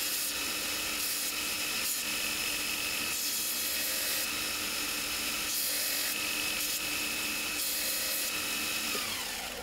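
Electric bench belt grinder running steadily while a steel bolt head is pressed against the abrasive belt, grinding its raised markings flat. Just after nine seconds the motor is switched off and winds down, its pitch falling.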